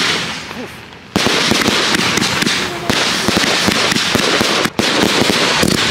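A consumer fireworks battery firing: a dense run of rapid bangs and crackling. It dies away in the first second, then starts again abruptly about a second in and carries on.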